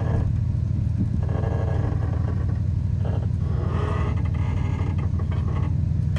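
Xplorer diesel railcar's underfloor engine running with a steady low throb, heard from inside the passenger cabin as the train moves.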